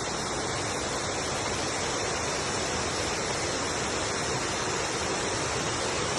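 Steady rush of a waterfall, an even unbroken roar of falling water.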